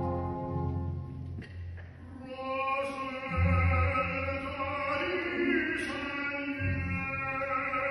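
Operatic tenor singing with a symphony orchestra, heard from the audience seats. Low held orchestral chords fill the first two seconds, then the voice comes in over the orchestra and carries on.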